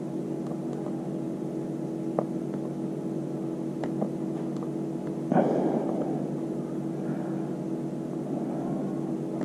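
Steady motor-like hum, with a few light clicks and one louder knock about five seconds in.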